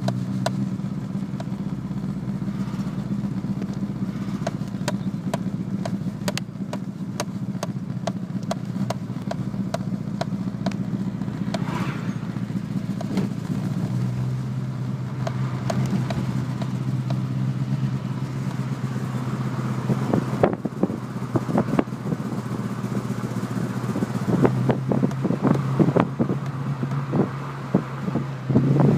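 Renault Clio 172 Cup's 2.0-litre four-cylinder engine idling cold with a misfire: the steady idle is broken by irregular pops and stumbles. The idle settles a little lower about halfway through, and the stumbles grow more frequent and harder after that.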